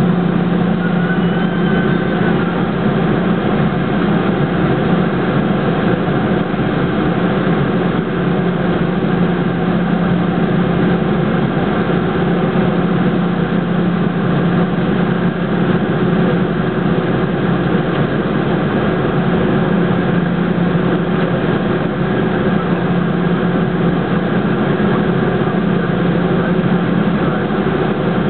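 Airliner jet engines idling steadily, heard from inside the passenger cabin as a continuous low hum with a constant drone.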